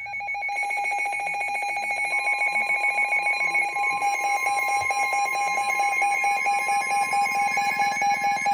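Emergency Alert System attention signal: a loud, continuous electronic alarm tone with a fast pulsing edge, joined by a second, higher tone about a second and a half in. It announces an incoming weather warning.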